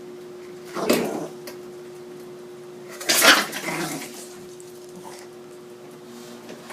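Yorkshire terrier growling in two short bursts, about a second in and again, louder, about three seconds in, guarding a porterhouse steak bone.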